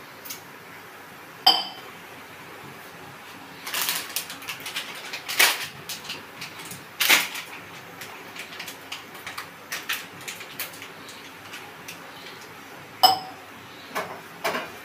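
Kitchen clatter: sharp metal clinks of a spoon and steel saucepan, two of them ringing, about a second and a half in and again near the end, with short scuffs and rustles between, over the steady hiss of a gas burner.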